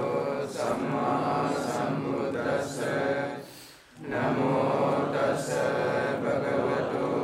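Buddhist monks chanting a devotional puja chant together: many men's voices on one line. The chant breaks off briefly for breath about halfway through, then picks up again.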